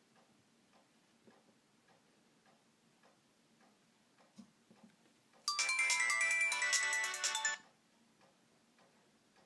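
Nokia X3-02 phone loudspeaker playing a short, loud electronic tone melody of about two seconds, starting about five and a half seconds in and cutting off suddenly. Faint, steady ticking runs beneath it.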